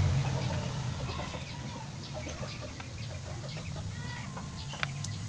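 Kitchen knife scraping chopped garlic across a plastic cutting board, with a sharp tap about four to five seconds in. Short bird-like calls are heard in the background.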